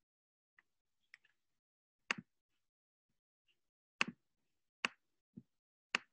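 A few sharp computer mouse or trackpad clicks, about five spread over four seconds, some doubled, preceded by a couple of faint ticks, against an otherwise quiet room.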